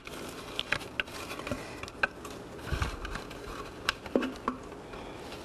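Rubber spatula scraping and tapping against a food processor bowl as crumbly flour, sugar and butter topping is worked out of it, with scattered light clicks and a dull knock near the middle.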